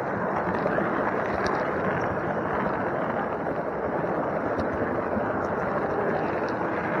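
Steady rolling rumble of a model train's wheels running on the track, picked up by a camera riding on a flat wagon, with faint occasional clicks.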